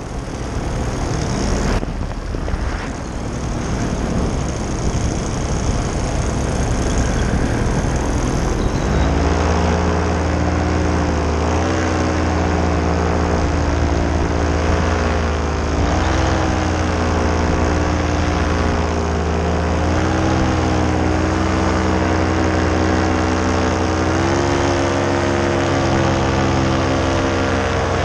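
Paramotor engine and propeller in flight. For the first several seconds wind rush on the microphone dominates; from about nine seconds in a steady engine note takes over, its pitch wavering slightly up and down.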